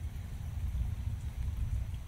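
Rain falling on a small creek and the foliage around it, with the creek's water flowing, all under a louder, fluttering low rumble that stops near the end.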